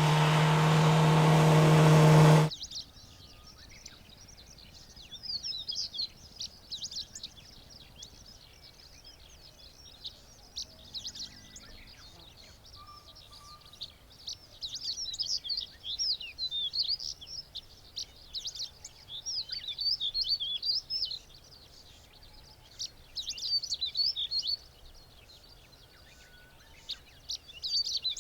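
A vehicle's engine and road noise, growing louder with a steady low hum, cuts off suddenly about two and a half seconds in. Then a small songbird sings quick, high, twittering phrases of a second or two, repeated every few seconds.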